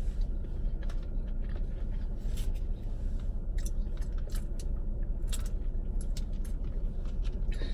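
Close-miked chewing and mouth sounds with scattered small clicks while eating, then sipping a drink through a straw. A steady low hum of the car cabin runs underneath.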